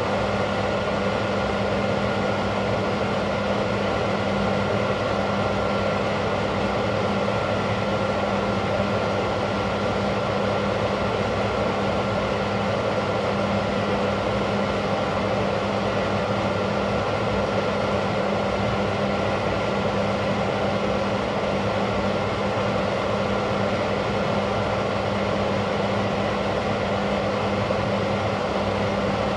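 Steady machine hum: a constant low hum and a faint high whine over an even rushing noise, without a break.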